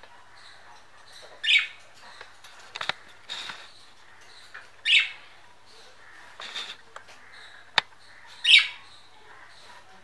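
Budgerigars calling: three loud, short, harsh chirps about three and a half seconds apart, with softer chirps between them, and a single sharp click near the end.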